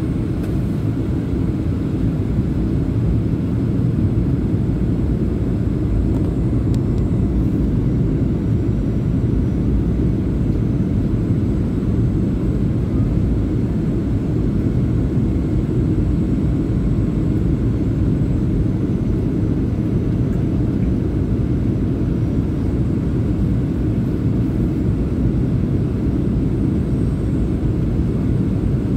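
Passenger airliner cabin noise in flight: the steady low rumble of the engines heard from inside the cabin.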